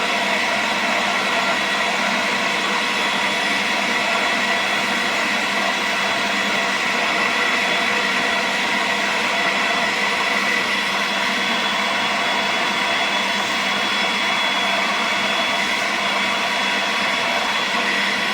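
BISSELL Little Green portable upholstery cleaner's suction motor running steadily: a rush of air with a steady high whine.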